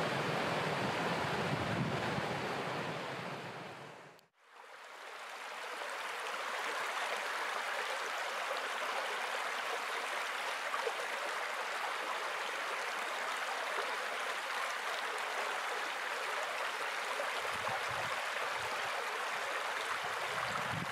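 Steady rush of a shallow, stony hill stream. The sound fades almost to nothing about four seconds in, then comes back, thinner and without the low rumble.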